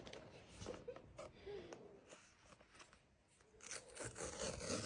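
Handling of a blind-box package: rustling, scraping and small clicks of cardboard and wrapping, busier near the end.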